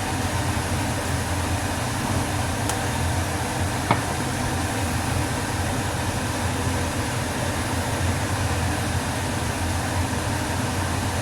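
Kitchen range hood fan running with a steady low drone, with a light clink of a utensil about four seconds in.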